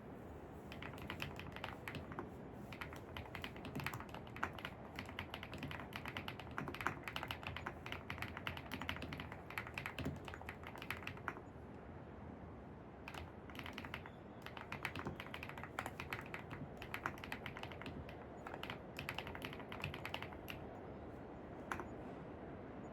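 Computer keyboard typing in quick runs of keystrokes, with a pause of a second or two about halfway through and a single key tap near the end, over steady low background noise.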